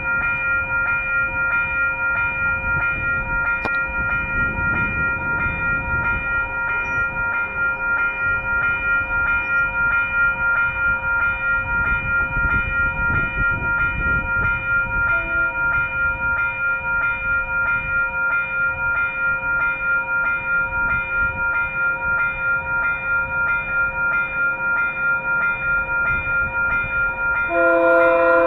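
A rebuilt Kawasaki railway cab car sounds a steady multi-tone warning signal that pulses about twice a second. Near the end its horn comes in with a louder, lower chord.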